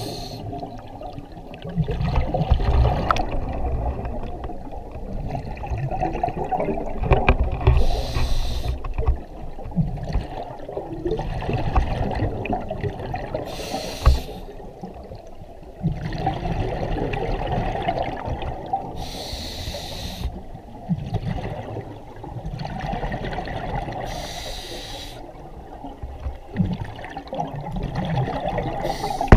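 Scuba breathing through a regulator, heard underwater: a short hissing breath about every five to eight seconds, alternating with longer rumbling, gurgling bursts of exhaled bubbles.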